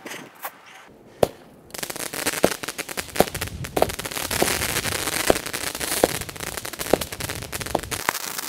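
Small consumer firework cake (a multi-shot battery) firing: after a short quiet spell with a few clicks, a dense hissing crackle sets in about two seconds in. A sharper pop comes roughly every three-quarters of a second, and near the end it breaks up into separate crackles.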